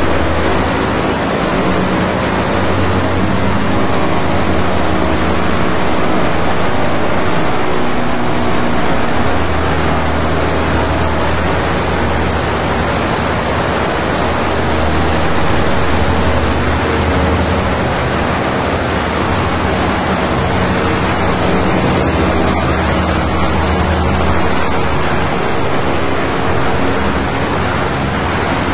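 Live electronic noise music: a loud, dense wall of noise over a low steady drone, made with laptop synthesis such as granular synthesis and wave-shaping. Around the middle, a sweep in the upper range dips down and rises again.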